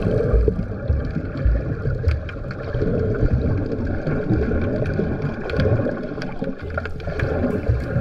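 Muffled water sloshing and gurgling picked up by a camera held underwater, an uneven low rumble with soft thumps and a few faint clicks.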